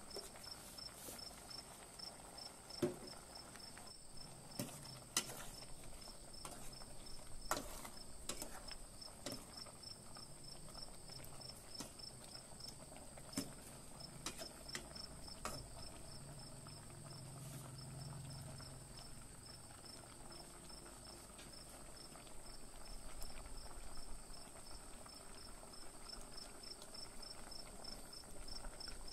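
An insect chirps in a fast, even pulse with a steady high hum behind it, over the bubbling of curry boiling in a pot. A ladle clicks sharply against the pot a few times.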